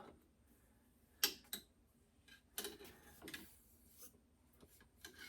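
Faint, scattered handling noises from rifle-cleaning gear: a sharp click about a second in, then a short run of light scrapes and clicks.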